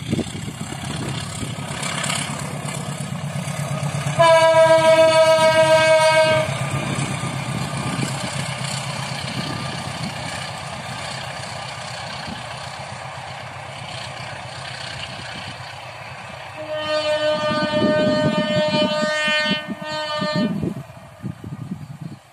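Diesel locomotive of a passing passenger train sounding its horn: one blast of about two seconds roughly four seconds in, then a longer blast starting around seventeen seconds in that breaks briefly near its end. This is the semboyan 35 horn signal. Between the blasts, the low rumble of the locomotive and coaches running past.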